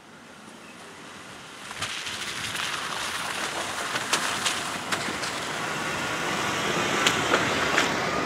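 Jeep Wrangler driving along a dirt track and passing close by: tyre noise that grows steadily louder as it approaches, with scattered sharp clicks of stones under the tyres.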